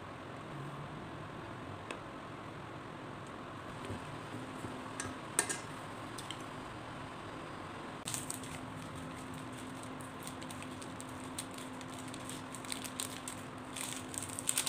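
Wooden chopsticks clicking and scraping against a stainless steel pot of noodles, with sharp clicks about five seconds in and more frequent ones in the second half, over a steady electrical hum from an induction cooktop.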